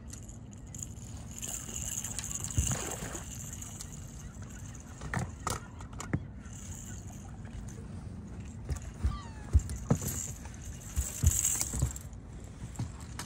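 A hooked blue catfish being reeled in and swung aboard a fishing boat: scattered knocks and thumps, getting louder and more frequent in the second half as the fish lands and flops on the deck, over a steady low rumble.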